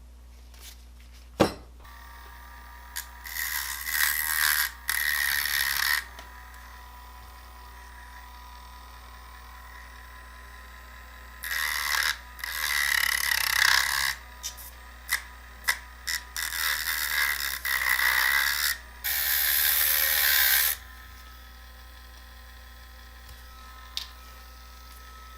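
Small power tool running in several bursts of one to three seconds against the axle ends of a diecast toy car, freeing its wheels.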